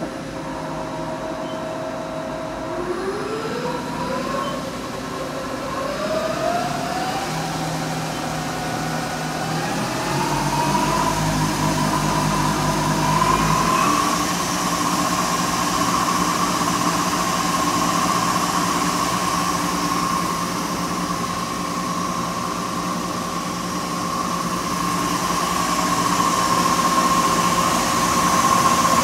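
Mori Seiki SL-45 CNC lathe spindle spinning its 15-inch three-jaw chuck. The spindle drive whines, rising in pitch in several steps as the speed is stepped up over the first dozen seconds. It then holds a steady high whine over a low hum.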